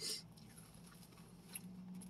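Quiet eating noises: a brief crackle right at the start and a faint click about one and a half seconds in, over a steady low hum.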